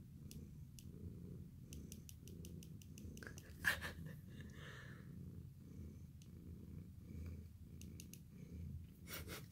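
Domestic cat purring steadily while its waxy ear is rubbed, with runs of small crackling clicks from the ear as it is handled. A louder brief rustle about four seconds in and again near the end.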